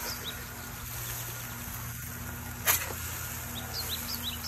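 Metal spatula working under burger patties on a charcoal grill grate as they are flipped, with one sharp clack about two-thirds of the way through. A steady low hum and faint insect chirping run behind it.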